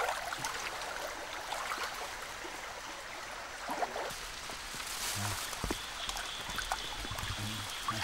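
Shallow stream water running, with small splashes and trickles as hands move through the water.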